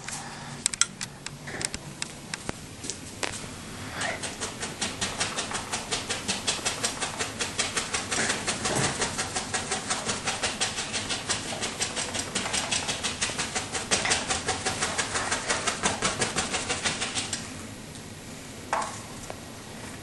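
Oil-paint brush tapped rapidly against the canvas, about six dabs a second, starting about four seconds in and stopping near the end, after a few scattered knocks.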